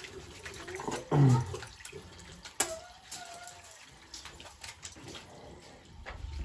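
Hand washing at a basin: water running from a tap, with a short pitched vocal sound about a second in and a sharp click a little before the middle, followed by a brief held tone.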